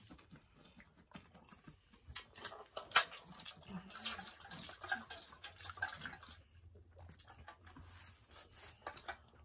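Close-miked chewing and wet mouth sounds of people eating a sauce-covered burrito, with small clicks and taps of plastic forks in styrofoam containers; one sharp click about three seconds in.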